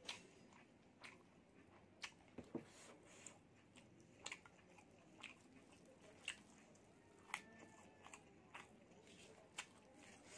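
Quiet, close-miked chewing and biting, with sharp crisp crunches and mouth clicks about once a second.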